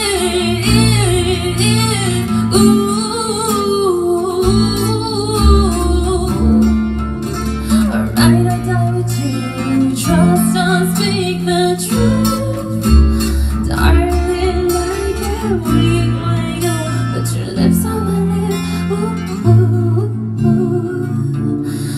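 Live pop song: a woman singing into a microphone, her voice wavering between notes, over keyboard chords and low held bass notes that change every second or two.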